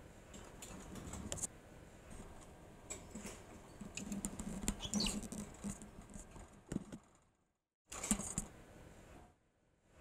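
Cockatiel's claws tapping and scraping on a wire cage-floor grate as it walks and shifts about, with a short chirp-like call about five seconds in.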